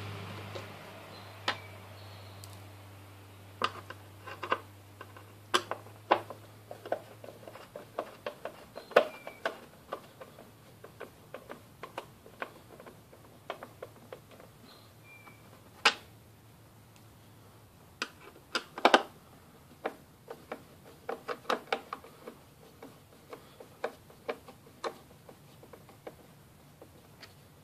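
Scattered small clicks and taps of a hand Phillips screwdriver and loose screws as the fuel-tank screws are backed out of a Lawn-Boy two-stroke mower. A faint low hum underneath fades out about two-thirds of the way through.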